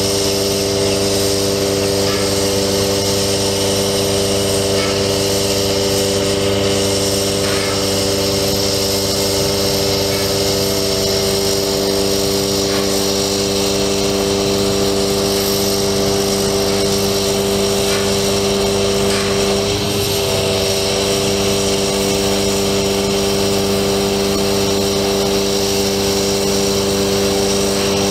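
Steady drone of the truck engine driving the hydraulic pump of a Palfinger PK32080 articulating crane while its boom is folded in and extended, an even pitched hum with a hiss over it and a few faint clicks.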